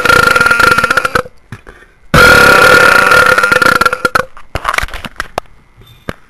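A person burping: a long, loud burp held at a steady pitch stops about a second in, a second long burp of about two seconds follows, and then come a few short, weaker burps.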